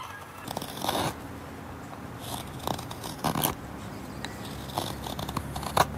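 Mora sloyd carving knife slicing shavings from a piece of wood in a handful of short scraping cuts, five or six strokes spaced irregularly.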